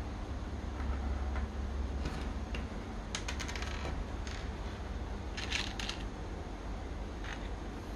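Small plastic Technic-style pins and gear parts clicking and clattering against a hard tabletop as they are handled and set down, in short bursts about three and five and a half seconds in, with a steady low hum underneath.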